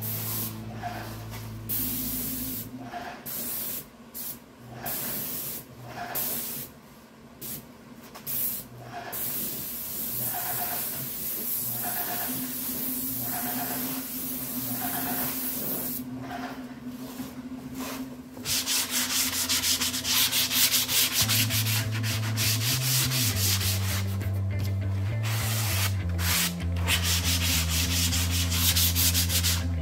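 Compressed-air spray gun hissing in on-and-off passes as lacquer sealer is sprayed onto bare cedar, then, about two-thirds of the way through, a louder hand-sanding rasp of a sanding block stroked back and forth over the cedar.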